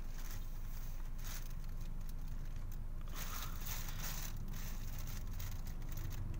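Steady low rumble of a car heard from inside its cabin in slow traffic, with faint crackling rustles now and then.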